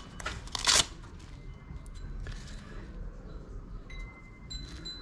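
A goalkeeper glove being handled and checked: two short rustling scrapes within the first second, then quieter handling noise. A faint high ringing tone comes about four seconds in.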